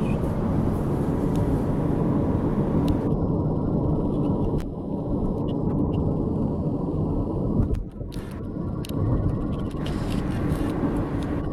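Road and engine noise of a moving car, heard from inside the cabin: a steady low rumble, dipping briefly about eight seconds in.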